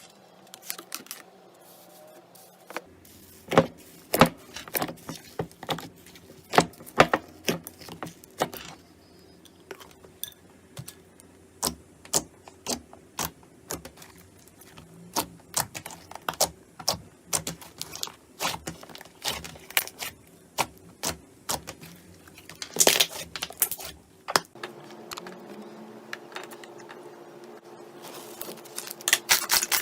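Slime being squeezed and poked, giving a run of sharp, irregular clicks and pops, a few a second, with louder clusters near the end.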